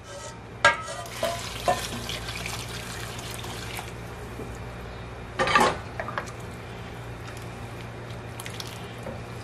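Vegetable broth poured from a stainless steel pot into an enameled cast-iron Dutch oven of cooked vegetables and tomatoes, splashing and sizzling as it hits the hot pot, then a wooden spoon stirring the soup. A brief louder sound about halfway through.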